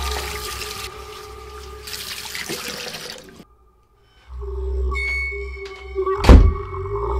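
Tap water running into a bathroom sink over hands being washed, under a steady droning music score. It cuts to about a second of silence, then a low rumbling drone returns, with a loud thud about six seconds in.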